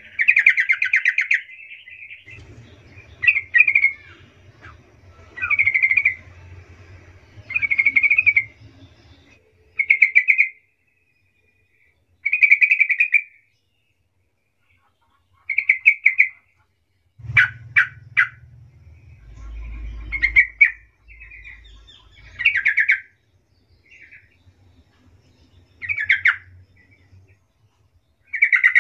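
Yellow-vented bulbul singing: a series of short, chattering phrases, about one every two seconds, with brief pauses between them. A faint low hum runs underneath at times.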